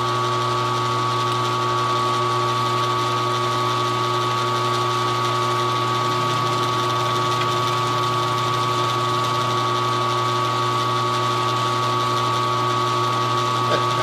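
Mill-drill running steadily with a hum and a high whine while its face cutter skims the top of a cast aluminium casting flat.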